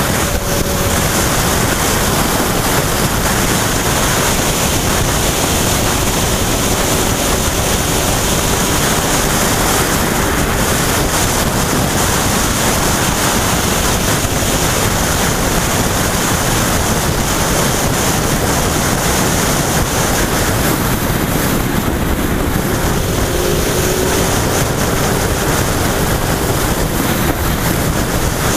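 Steady wind rushing over the camera microphone of a motorcycle at road speed, with the bike's engine faintly audible beneath it as a thin tone that rises and falls slightly near the start and again a little past the middle.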